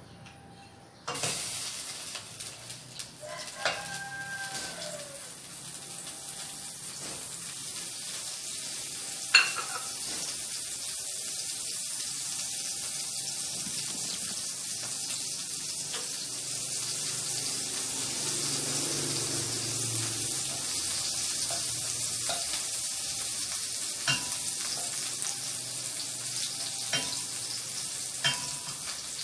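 Butter sizzling as it melts in a stainless steel pan: a steady hiss that starts suddenly about a second in, with a few sharp taps of a wooden spatula against the pan as it is stirred.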